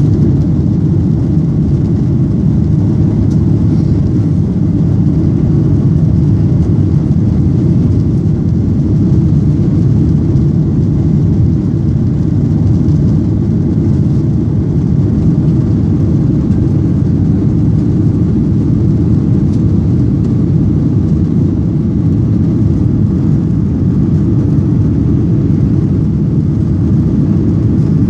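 Steady low rumble of a jet airliner's engines and rushing air, heard from inside the passenger cabin during the climb after takeoff.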